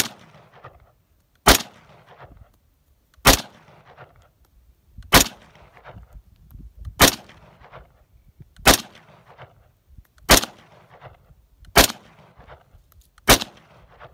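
Nine slow, steady semi-automatic shots from a Yugoslavian M59/66 SKS rifle in 7.62x39, about one every one and a half to two seconds. Each sharp report is followed by a short echo.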